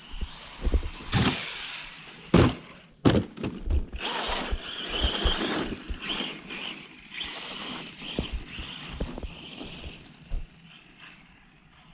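Arrma Senton RC truck driving over snow, its electric motor whining in bursts as it speeds up and slows, with several sharp knocks in the first few seconds.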